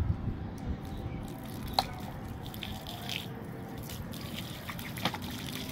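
Water pouring and trickling from a plastic bottle onto sand, with a sharp click about two seconds in.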